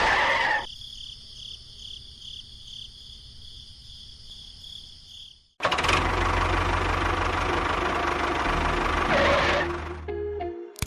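An engine running. A quieter stretch with a faint repeating beat breaks off in a brief silence about halfway through, then a louder, steady run of engine noise follows and drops away near the end.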